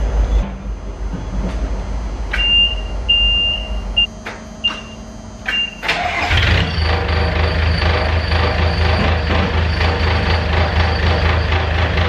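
Mustang 940E skid steer cold-started: a warning beeper gives about six short high beeps, then the diesel engine catches about six seconds in and runs steadily.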